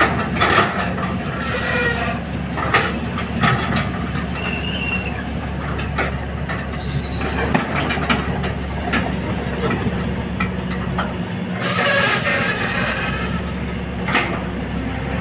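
Kobelco SK200 hydraulic excavator digging: a steady diesel engine drone with irregular metallic clanks and knocks.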